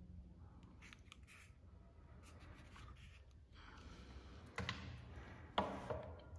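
Faint handling sounds as a car-speaker passive crossover unit and its wires are moved and set down on a table among plastic-wrapped parts: light rustles and clicks, with two louder sudden sounds about four and a half and five and a half seconds in.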